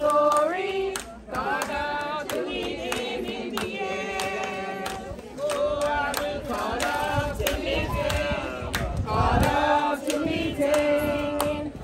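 A crowd of mourners singing together, men's and women's voices, with held, wavering notes.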